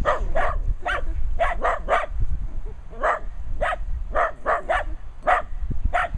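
Small dog barking repeatedly and high-pitched: about a dozen short, sharp barks, irregularly spaced and sometimes in quick pairs, with a brief pause midway.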